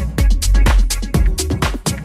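Deep house music from a DJ set: a steady beat of about four sharp percussion hits a second over a strong bass line.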